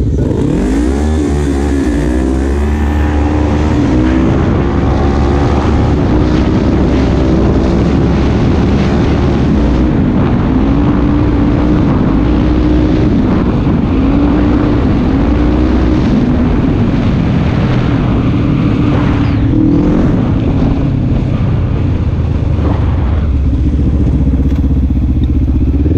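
Quad bike (ATV) engine under way across rough ground, its pitch climbing over the first few seconds, then rising and falling again and again as the throttle opens and closes. A heavy rumble of wind on the helmet-mounted microphone runs underneath.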